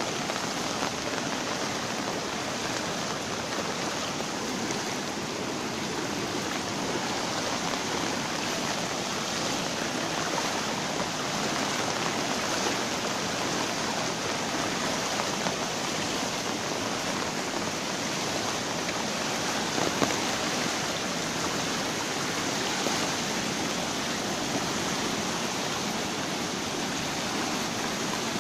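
Fast-flowing floodwater rushing past in a steady, even hiss of moving water, with a few brief clicks, the sharpest about two-thirds of the way through.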